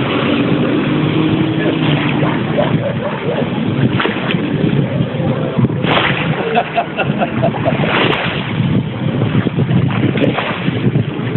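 Sea-Doo 155 hp jet ski running while maneuvering on the water, its engine note plainest in the first seconds. Rushes of water spray and wind noise come about six and eight seconds in, and again near the end.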